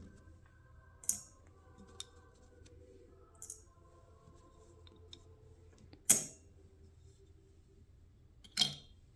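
Small metal parts of a lawnmower carburetor being handled and set down during disassembly: four separate sharp clicks and clinks, the loudest about six seconds in.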